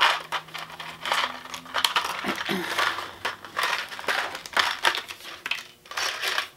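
Crinkling and rustling of a clear plastic blister pack and its card backing being handled and opened to get at wire connector caps, in irregular bursts.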